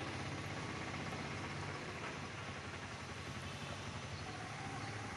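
Steady outdoor ambience of a rain-flooded street: an even hiss with a low rumble under it.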